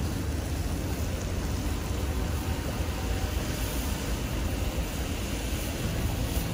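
Chicken broth pouring into a hot cast iron skillet of pork roast and vegetables over a wood fire, sizzling as a steady hiss with a low rumble underneath.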